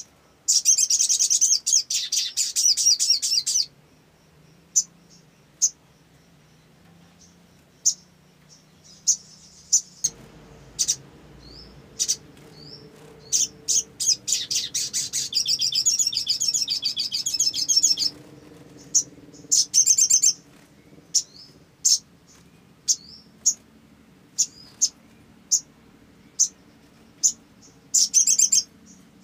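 Olive-backed sunbird singing: long bursts of rapid, high-pitched twittering trills, three or four seconds each, at the start and in the middle, plus a short one near the end. Between the bursts come single sharp chip notes about once a second.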